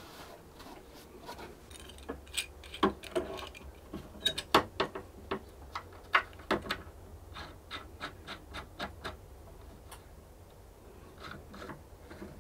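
Small screw clamps being fitted and tightened along a freshly glued crack in a cello rib: a run of irregular clicks and knocks as clamp bars, jaws and screw knobs are set against the wood. The clicks are loudest in the middle and thin out to a few soft ticks near the end.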